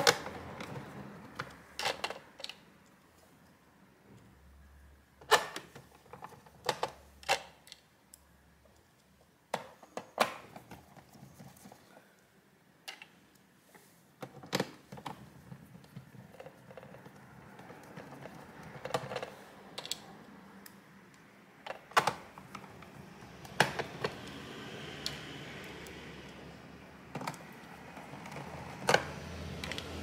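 Small laptop screws clicking and rattling in a clear plastic parts tray and being driven into a laptop's bottom case with a screwdriver. Irregular sharp clicks and taps, a few of them louder knocks.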